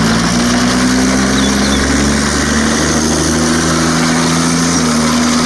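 Motor-driven pressure washer running steadily, its motor hum under the continuous hiss of the water jet spraying a muddy toy.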